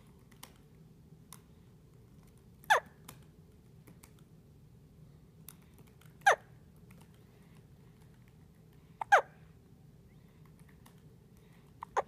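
Soft hiccups, four in all, about three seconds apart. Each is a short squeak that falls in pitch, and the last, near the end, is fainter.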